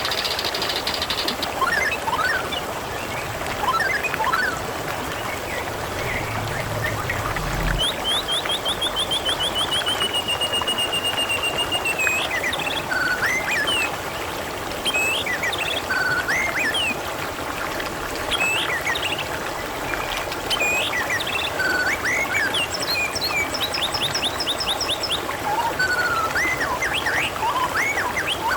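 Small stream of water trickling steadily, with songbirds chirping over it: a long rapid trill about eight seconds in that falls in pitch, scattered short whistled chirps, and another quick trill near the end.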